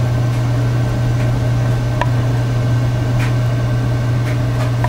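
Steady low electrical or mechanical hum, unchanging throughout, with a few faint clicks about two and three seconds in and again near the end.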